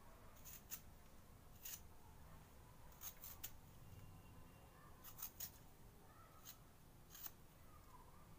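Faint, short scraping strokes of a handheld vegetable peeler on raw taro root (arbi), about a dozen scattered irregularly, some in quick runs of two or three.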